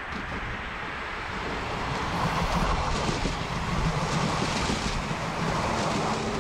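A train passing on the line: a rushing rumble with no clear tone that swells about two seconds in.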